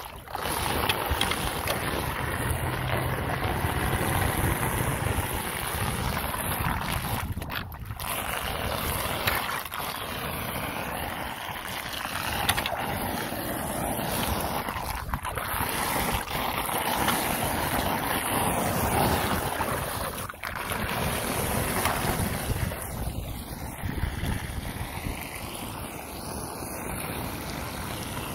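Floodwater pouring down a street storm drain that has just been cleared of leaves, making a steady rushing swirl, with wind noise on the microphone.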